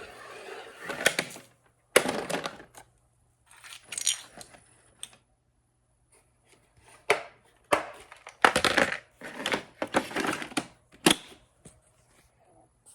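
Hard plastic LEGO bricks clattering and rattling in irregular bursts as a robot vacuum sweeps them up, with quiet gaps between bursts.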